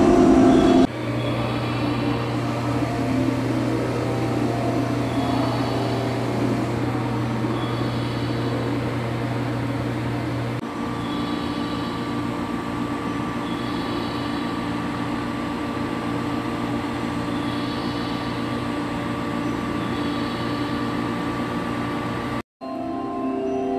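Steady hum of a stationary 413-series electric train's onboard auxiliary equipment running at the platform. The low hum gives way to a slightly different steady hum with a thin higher tone about ten seconds in.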